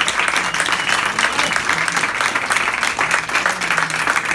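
Audience applauding steadily, a dense patter of many hands clapping, with a few voices faintly heard beneath it.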